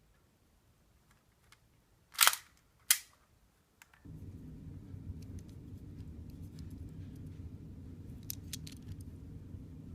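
Homemade Lego blowback pistol dry-firing: two sharp plastic snaps about 0.7 s apart as the slide is driven back and springs forward. From about 4 s in, a steady low rumble sets in, with faint clicks of the bricks being handled.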